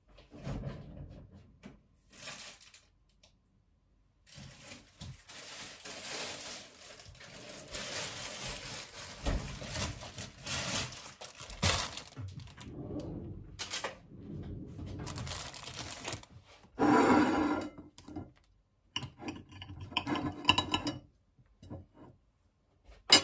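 Kitchen handling sounds: rustling and crinkling with knocks and clatter as dark bread is fetched, then bread and a knife are set on a glass plate near the end.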